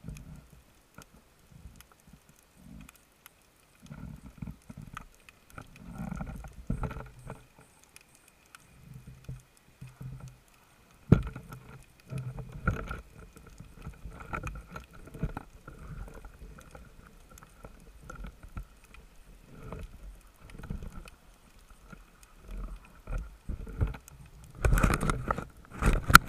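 Muffled knocks, rubbing and water movement picked up by an underwater camera housing as fish on a stringer and a speargun are handled, over a faint steady high tone. There is one sharp click about eleven seconds in, and a louder burst of noise near the end.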